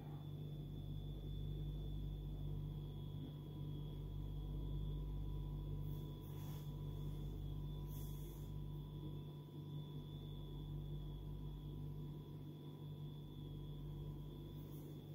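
Steady low electrical hum with a faint, thin high whine over it, and a couple of soft brief noises in the middle.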